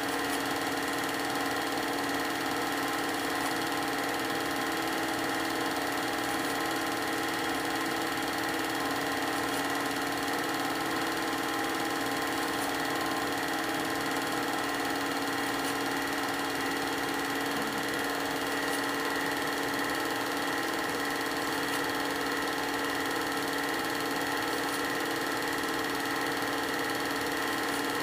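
Film projector running: a steady mechanical whir with a constant hum of several fixed tones that does not change.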